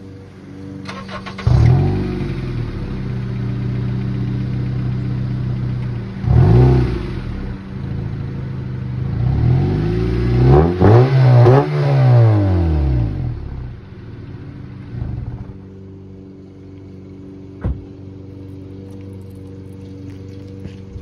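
2010 Acura TSX engine heard through an exhaust delete: the driver-side exhaust section is removed and the passenger side left stock. It idles, is revved and held up for a few seconds, blipped, then revved several times in quick succession before dropping back to idle. Near the end there is one more short blip and a single sharp click.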